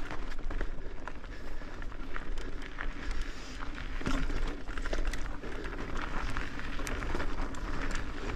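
Mountain bike rolling fast down rocky dirt singletrack: knobby tyres crunching over dirt and loose stones, with frequent sharp clicks and rattles from the bike over the bumps, over a low rumble of wind on the microphone.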